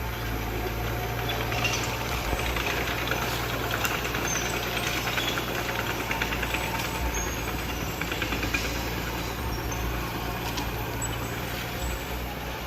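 Diesel engine of heavy earthmoving machinery running steadily, with a stretch of rapid clattering and rattling from about a second and a half in until about nine seconds.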